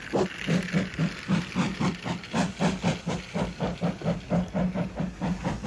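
Steam train chugging steadily as it pulls away, a rhythmic chuff of about five beats a second.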